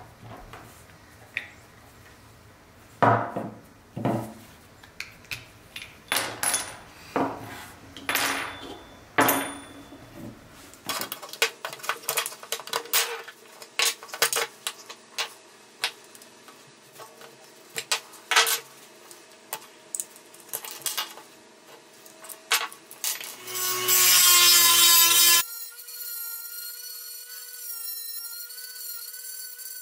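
Small clicks, taps and scrapes as hubcaps and wheels are pried off a pressed-steel toy car with a small hand tool. Near the end a flex-shaft rotary tool with a cut-off disc whines steadily as it grinds into the steel body.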